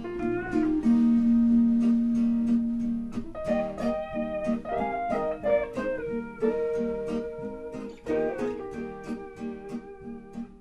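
Instrumental background music: plucked guitar notes over long held tones.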